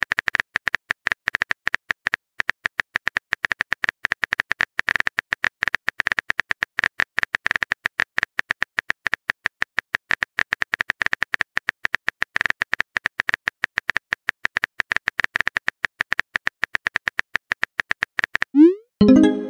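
Rapid, irregular clicks of a phone keyboard typing sound effect, several a second, as a message is typed letter by letter. Near the end comes a short rising pop as the message is sent.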